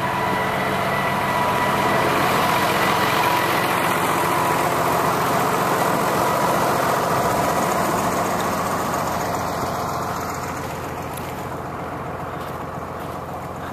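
A vehicle engine running steadily, getting a little quieter near the end.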